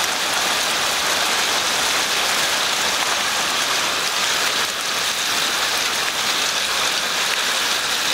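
Small hail falling hard with rain, a dense, steady pattering on a wet asphalt driveway and pine-needle-covered ground.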